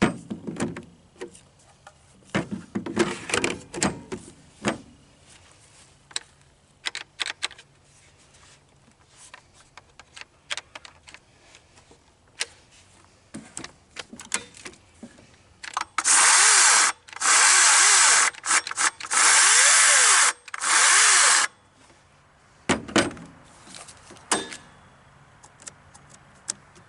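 Greenworks 60V brushless cordless chainsaw triggered in four short bursts, the motor and chain whirring up to speed and winding down each time. Clicks and knocks from handling the saw come before the bursts.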